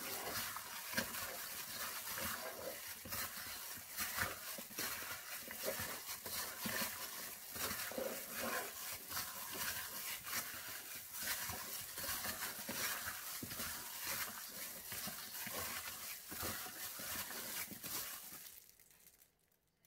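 A plastic-gloved hand kneading raw chicken wings with a dry spice rub in a bowl: the glove crinkles and rustles and the meat squishes. It stops near the end.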